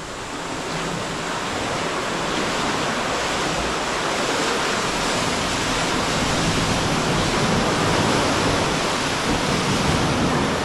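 Sea swell surging and washing through a rocky sea cave at rising tide, a steady rushing noise that builds over the first couple of seconds.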